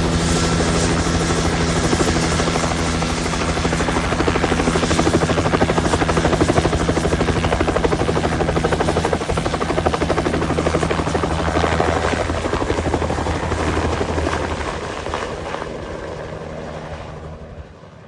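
Helicopter running, with a fast, even rotor chop over a steady hum, fading away over the last few seconds.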